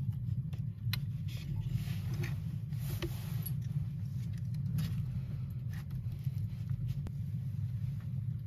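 A steady low rumble, with scattered light clicks and rustling as a hinged wire fish-grilling basket is handled and closed around a whole fish.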